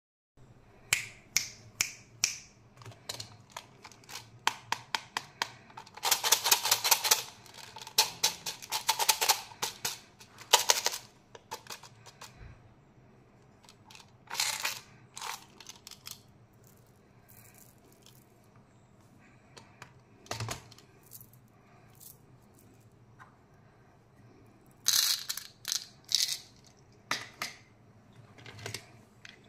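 Hard plastic candy toys and packets handled, with scattered clicks and taps. Two spells of fast rattling in the first half sound like small hard candies shaken inside a plastic dispenser, and a cluster of sharp clicks comes near the end.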